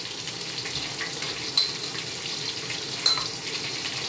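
Fishcakes deep-frying in a wok of hot vegetable oil: a steady bubbling sizzle. Twice, about a second and a half apart, metal tongs clink sharply against the wok.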